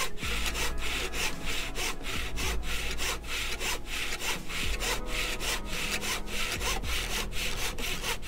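Panel saw cutting through a small piece of wood, a steady run of quick, even back-and-forth strokes as the blank for a plane's throat insert is cut down to size.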